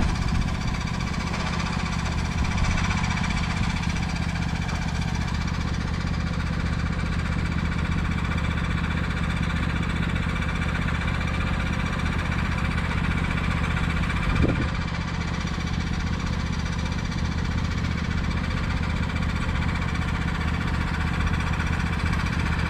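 Vehicle engine idling steadily close by, with a single short knock about two-thirds of the way through.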